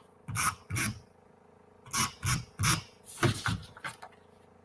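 A tape runner drawn in short strokes across the back of a cardstock mat, laying down adhesive: about six brief rasps, two near the start and a quicker run of four in the middle.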